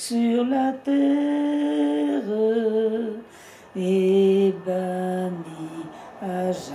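An elderly woman singing a slow song unaccompanied, in long held notes and short phrases with brief pauses between them.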